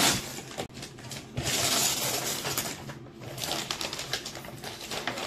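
Glossy gift wrapping paper being torn off a box and crumpled: a long rip about a second and a half in, then a run of crinkling.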